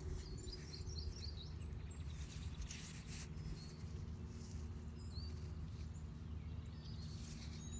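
Outdoor ambience: a steady low hum with a few short, high bird chirps scattered through it.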